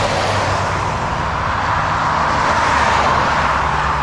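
Road traffic passing on a highway: steady tyre and engine noise from cars going by, swelling a little about two to three seconds in as a vehicle passes.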